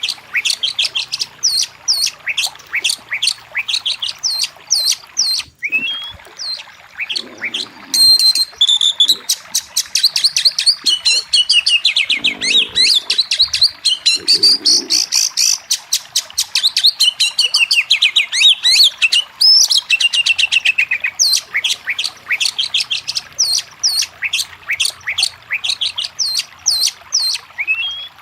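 Oriental magpie-robin (kacer) singing: a long run of sharp chirps and downward-sweeping whistled notes. About a third of the way in they run together into a fast, dense chattering trill. They spread back out into separate notes for the last third.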